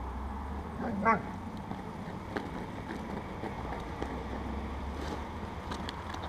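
A dog gives one short bark about a second in, over a steady low rumble. A few faint clicks follow later.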